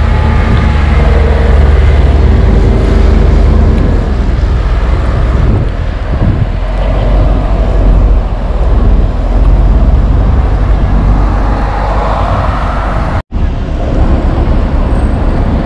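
City road traffic with a double-decker bus driving past, a steady loud rumble heavy in the low end. The sound drops out for a moment about 13 seconds in.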